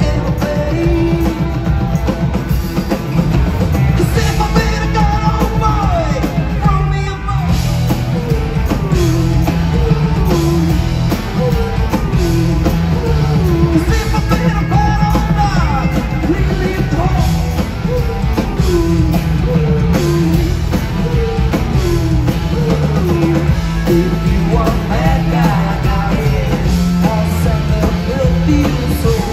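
Rock band playing live: drums, bass and electric guitar with singing. After a brief drop about seven seconds in, a short phrase that slides down in pitch repeats about once a second over a heavy low end.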